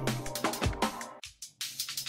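Electronic background music with a steady drum beat and bass. It drops out briefly just past halfway, then comes back lighter.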